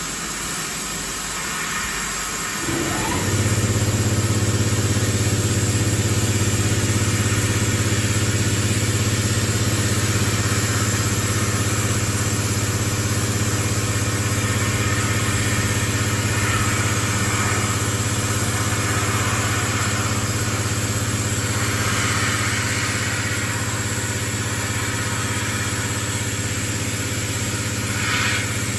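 Air sandblaster gun with a boron carbide nozzle blasting metal parts inside a blast cabinet: a loud, steady hiss of compressed air and abrasive. About three seconds in, a steady low machine hum joins it and the sound gets louder.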